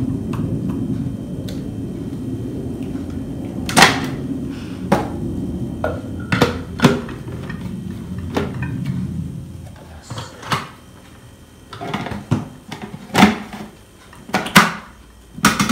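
Hard plastic parts of a food processor clicking and knocking as its pusher, lid, bowl and slicing disc are handled and snapped into place, about ten separate knocks. A steady low hum runs under the first two-thirds and stops about nine seconds in.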